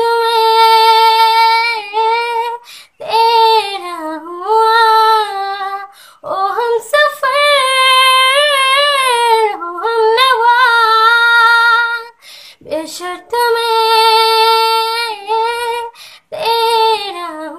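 A young woman singing a Hindi song unaccompanied, holding long steady notes in phrases with short breaks for breath between them.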